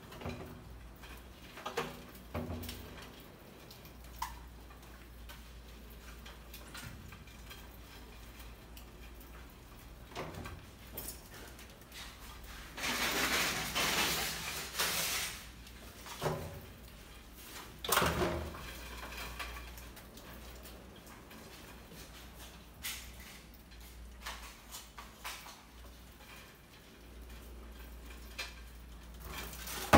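Rats moving over a wooden ramp, board and glass tank, making scattered knocks, clicks and scrapes, with a longer stretch of scrabbling about halfway. A loud knock comes right at the end, as the hinged trap board tips over.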